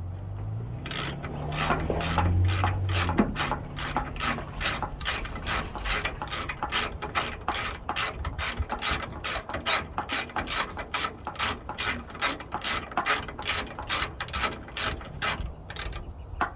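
Hand ratchet wrench clicking at an even two to three clicks a second as it drives a 1/4-20 cap bolt into a threaded rivnut insert, stopping shortly before the end.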